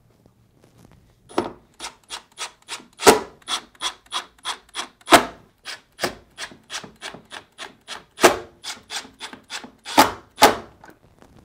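Milwaukee cordless driver running screws into a refrigerator's plastic ice chute plate: a long, uneven run of sharp clicks, about four a second, starting about a second in.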